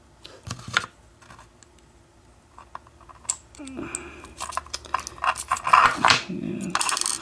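Small metal parts of an American 1100 padlock being handled as the lock is taken apart: sharp clicks about half a second in, then dense clicking and rattling from about three seconds on as the pin stacks come loose and a pin falls out.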